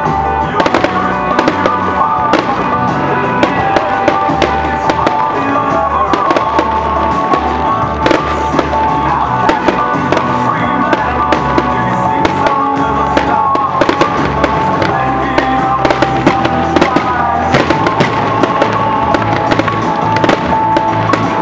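Aerial fireworks shells bursting and crackling in quick succession, many sharp bangs throughout, over loud music with held notes and a bass line playing all the while.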